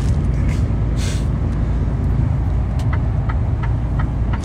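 Steady low drone of a truck's engine and road noise heard inside the cab, with a short hiss about a second in. From about three seconds in, the turn-signal relay ticks about three times a second as the truck signals right.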